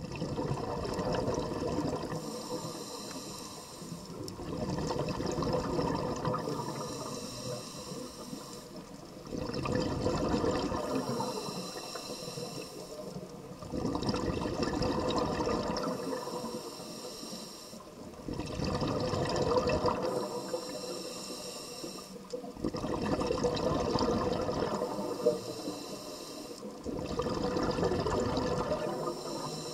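Scuba diver breathing through a regulator underwater. A hissing inhale alternates with a gurgling rush of exhaled bubbles, one breath about every four to five seconds.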